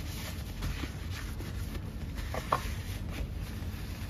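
Soft rubbing and scuffing of the Ninja Foodi pressure-cooker lid being wiped off by hand, with a light click about two and a half seconds in.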